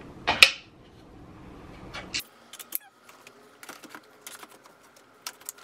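Plastic clicks and knocks of an infant car seat being handled and fitted onto a Cybex Gazelle S twin stroller's frame: one sharp loud knock about half a second in, then a scatter of lighter clicks. The fitting is being tried without the second car seat adapter it needs.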